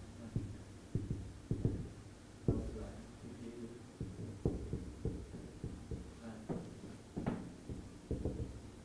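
Marker writing on a whiteboard: irregular taps and short scraping strokes, one or two a second.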